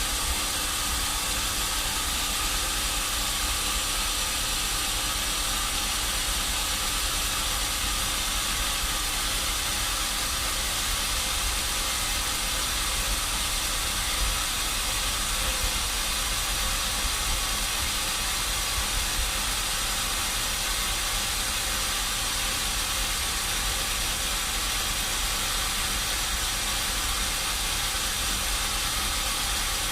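Sawmill machinery running with a steady, even hiss and a faint hum underneath.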